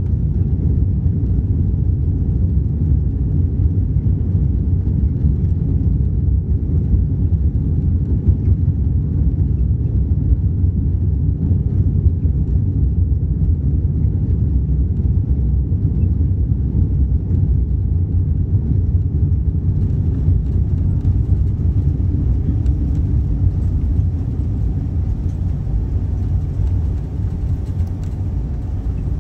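Low, steady rumble inside the cabin of an Airbus A380 rolling along the runway after touchdown, easing slightly near the end as the aircraft slows.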